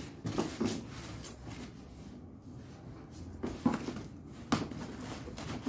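Styrofoam packing and a cardboard box being handled, with a tool scraping the foam. Scattered short scrapes and knocks come at the start and again from a little past halfway on.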